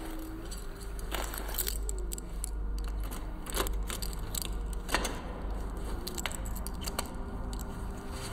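Glass clinking and rattling as it is handled, a few sharp clinks with the loudest about five seconds in, over a steady low hum.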